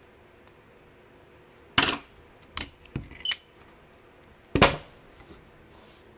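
Locking vise pliers and locking forceps being released and set down: five sharp metallic clicks and clacks, the loudest about two seconds in and again near the end, with three lighter clicks between.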